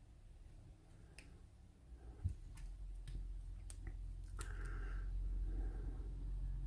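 Scattered faint metallic clicks of a hook pick and tension wrench working the pins of a Kwikset pin-tumbler cylinder loaded with security pins, its core held in a false set. A low hum runs underneath.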